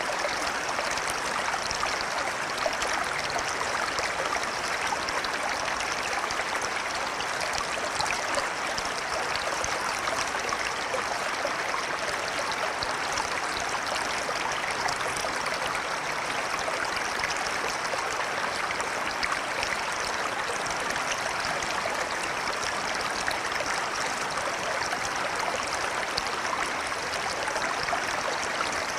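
A flowing river, an even rushing of water that holds steady throughout.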